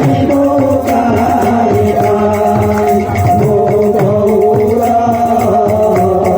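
Kirtan music between sung verses: steady held melody notes over a rhythm of hand drum and jingling percussion.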